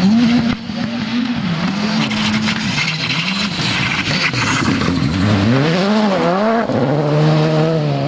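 Škoda Fabia R5 rally car's 1.6-litre turbocharged four-cylinder engine on a gravel stage. The revs rise and fall several times through the gear changes as the car slides through a bend, with gravel hissing and spraying from the tyres near the middle. It then settles into a steadier note as the car accelerates away.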